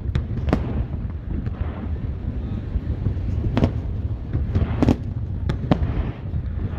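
Fireworks shells bursting in the air: about six sharp bangs at irregular intervals, the loudest near the middle and near the end. A steady low rumble of wind on the microphone runs underneath.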